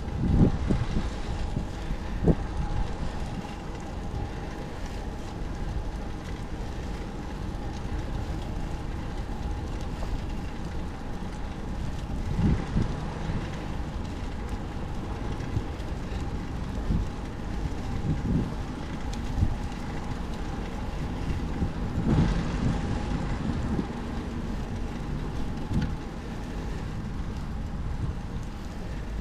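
Wind buffeting the microphone and road rumble on a moving bicycle, with a faint steady whine and occasional low thumps.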